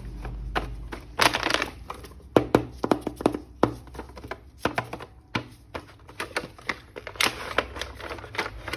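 Plastic toy packaging being handled and opened: an irregular run of sharp clicks and crinkling rustles.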